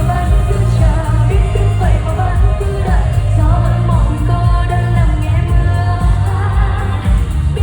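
Live pop song from a band at a sound check, with strong bass and a melodic vocal line over it.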